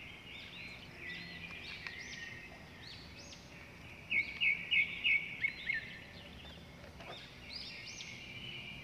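Small birds chirping and twittering, many short rising-and-falling notes, with a closer bird calling a quick run of about six sharp, louder notes about four seconds in.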